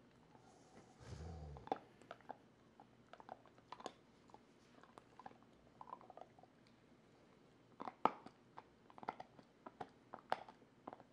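Golden retriever gnawing a hard chew bone: irregular crunching, clicking bites and teeth scraping, busiest near the end. A brief low-pitched sound about a second in.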